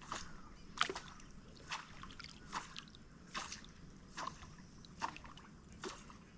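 Propeller surface lure being worked across the water with rhythmic twitches, making a short splash about every 0.8 seconds.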